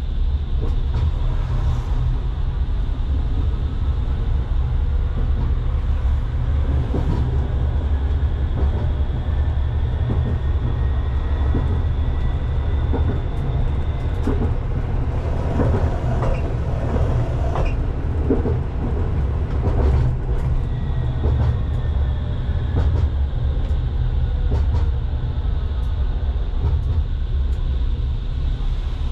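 Pragoimex T3R.EV tram running on the line, heard from the driver's cab: a steady low rumble of wheels on the rails with a high steady whine. Midway the whine drops out for several seconds while a run of clicks and knocks from the wheels crossing rail joints and track work comes through.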